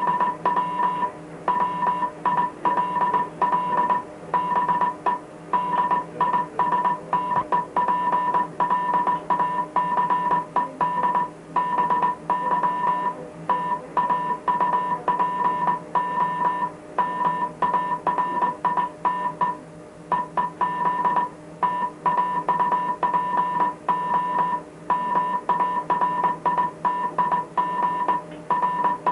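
Morse code from a maritime coast radio station's closing advisory, heard as a single steady beep keyed on and off in quick dots and dashes, with short pauses between characters and a slightly longer break about two-thirds of the way through. Under the beeps runs a constant low hum and radio hiss.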